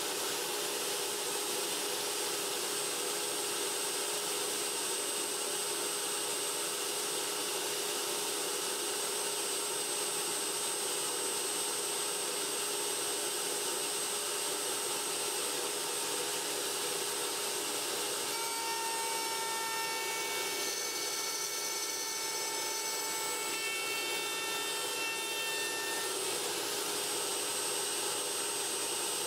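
Router in a router table running steadily, a constant whine over a rushing noise, with a few higher tones coming and going about two-thirds of the way through.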